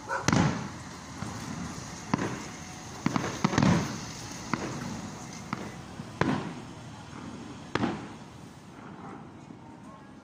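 Aerial fireworks exploding: about eight sharp bangs at uneven intervals, each trailing off into a short rumble, with the last one a couple of seconds before the end.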